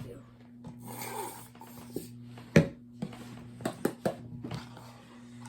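Sticky homemade glue slime being played with by hand, with a few sharp snapping clicks; the loudest comes about two and a half seconds in.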